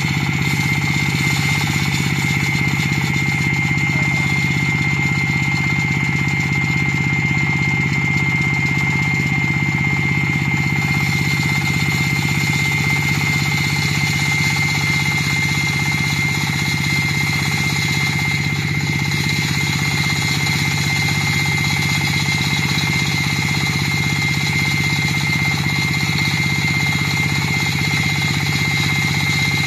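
A 38 HP diesel-powered floor saw running steadily under load as its diamond blade cuts wet concrete. The engine runs without a break, with a steady high whine over it.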